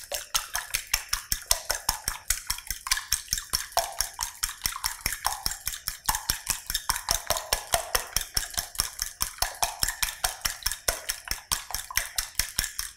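Fork whisking raw eggs in a glass bowl: a fast, steady clicking of the fork against the glass, about five strokes a second, with the liquid egg swishing.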